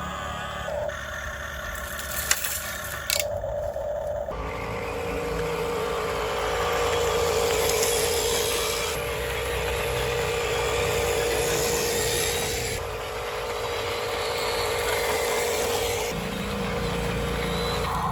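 Small electric motor and gears of a toy machine whining steadily, starting about four seconds in, with a gritty scraping noise over it.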